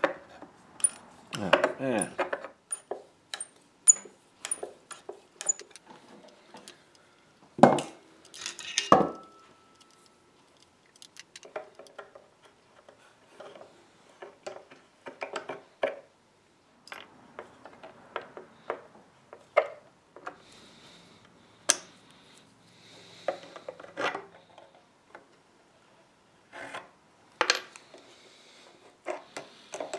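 Steel hand tools clicking, scraping and knocking against screws and nails in the wooden block of an antique table base: a pointed tool prods a screw that just spins, then pliers grip and pull nails. The sound comes as irregular taps and scrapes, and one strike about nine seconds in gives a short metallic ring.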